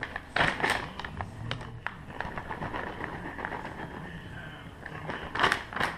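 Plastic bag of shredded cheese crinkling and rustling in bursts as it is handled and tipped out into a bowl, loudest about half a second in and again near the end.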